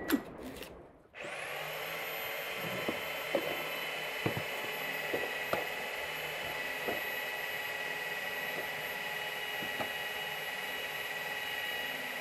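A motor starts up about a second in, its high whine rising briefly and then running steadily. Over it come faint, irregular taps of a knife cutting an onion on a wooden board.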